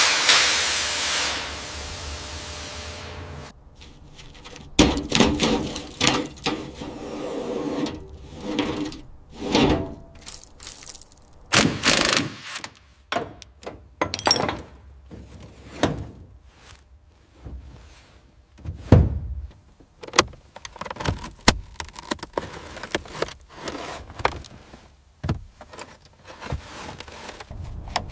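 Garage work sounds: a hiss for about the first three seconds, then a long run of irregular knocks and clunks of tools and parts being handled.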